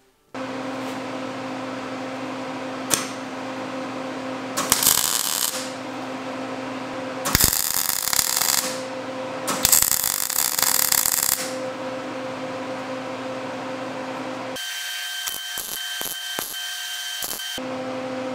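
Arc welder humming steadily, with three short bursts of arc crackle as welds are laid on a steel clutch/brake pedal part clamped in a vise. Near the end, a few seconds of thin high tone and clicks replace the hum.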